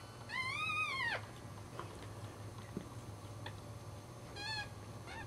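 Newborn Cairn Terrier puppies crying with thin, kitten-like squeals: a long one near the start that rises and then falls, a shorter one just past halfway and a brief one near the end.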